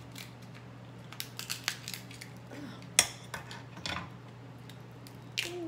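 Kitchen scissors snipping and cracking through a king crab leg shell: a run of sharp clicks and cracks, with one louder click about three seconds in.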